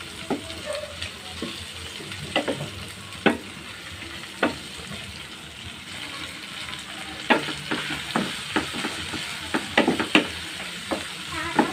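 Squid, onion and chilies sizzling in a nonstick pan while a wooden spatula stirs them, with a steady frying hiss and irregular sharp clicks of the spatula against the pan, more frequent in the later part.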